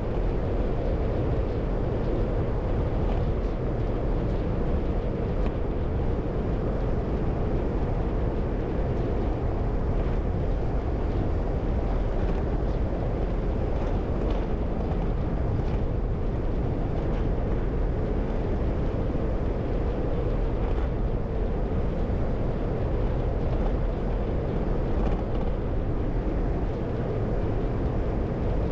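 A car driving at steady speed: a constant low rumble of tyres on the road and the engine, with no change in pace.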